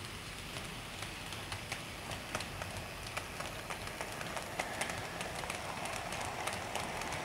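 Hornby 00 gauge model Drummond 700 class locomotive running with a train of model freight wagons: a steady running hiss with many small clicks of wheels over the track, growing a little louder toward the end as the wagons pass close.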